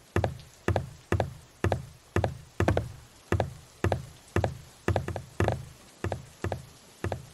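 Footsteps on a staircase: even, hard knocking steps about two a second, each with a low thud.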